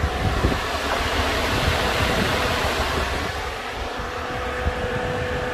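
Chevrolet S10's electric radiator cooling fan running steadily at about three-quarter commanded speed during a scan-tool actuator test, a continuous rushing of air.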